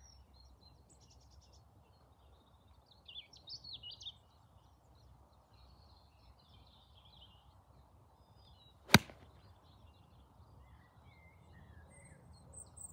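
A golf club striking the ball on a full swing: one sharp, short crack about nine seconds in.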